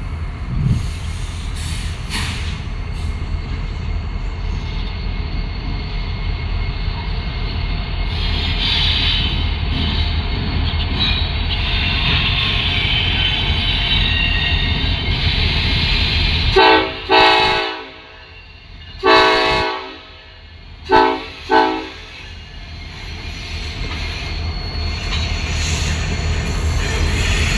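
Ferromex SD70ACe diesel-electric locomotive leading a freight train, with a steady diesel rumble and rolling, squealing wheels. About 16 seconds in its air horn sounds a run of blasts: two close together, a longer one, then two short ones. Afterwards the engine and wheel noise grows louder as the locomotives pass.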